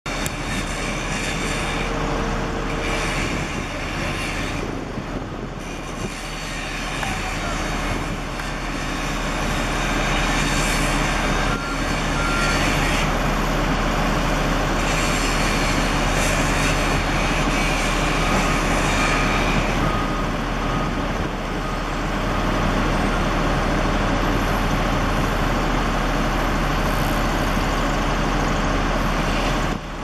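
Diesel engine of a backhoe loader running steadily amid construction-site noise, a little louder from about ten seconds in. A faint run of short, evenly spaced beeps sounds around the middle.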